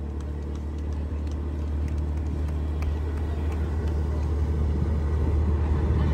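Boat engine running with a steady low drone that grows gradually louder.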